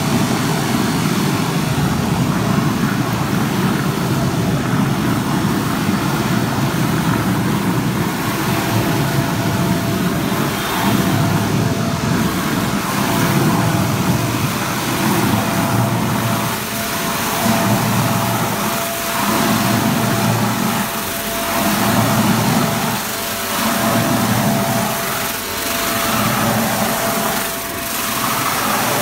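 Hydraulic high-speed mixer running, its shaft churning liquid in a steel tank: a loud, steady mechanical noise with a faint steady whine. From about halfway it swells and dips roughly once a second as the vortex deepens.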